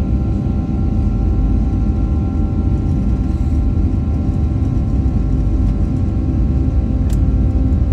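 Boeing 757-300 jet airliner at takeoff or climb power: a loud, steady engine rumble with a steady whine of several tones over it.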